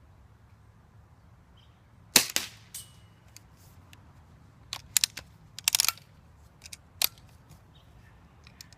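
BB gun being fired: a string of sharp snaps, the loudest about two seconds in, then a few more in quick succession through the middle.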